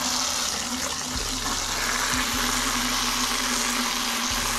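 Garden hose spray nozzle jetting water into a bucket of car-wash soap, a steady rushing splash as the bucket fills and the suds foam up, with a steady low hum underneath.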